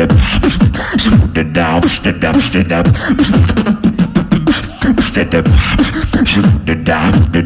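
Solo human beatboxing: fast vocal snares, clicks and hi-hat hisses over deep bass kicks that slide down in pitch, in a steady driving rhythm.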